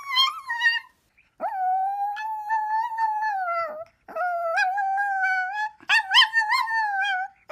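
Chihuahua howling: a short howl, then three long, slightly wavering howls of a couple of seconds each, with brief breaks between them.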